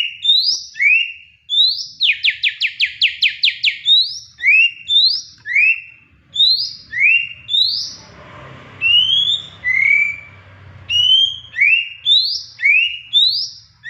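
Oriental magpie-robin singing: clear rising whistled notes, one every half-second to second, with a quick run of about ten short rising notes about two seconds in. The owner takes the song for the bird's excited greeting.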